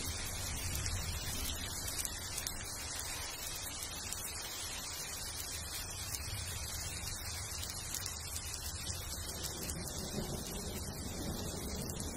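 Steady rain falling on forest foliage: an even hiss with a low rumble underneath.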